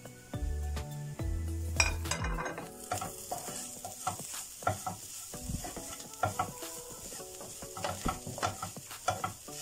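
Wooden spatula scraping and tossing shredded meat filling around a nonstick frying pan, with a light sizzle from the hot pan. The stirring sets in about two seconds in as a run of irregular scrapes and taps.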